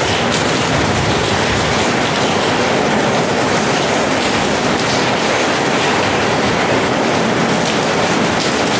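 Heavy rain falling steadily on a corrugated metal roof and pouring off its edge in a dense, unbroken rush.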